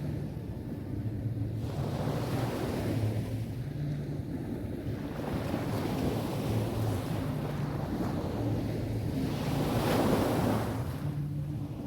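Sea waves rolling onto a beach and washing up the shore, with wind buffeting the microphone as a steady low rumble. The surf swells and fades, the biggest wash about ten seconds in.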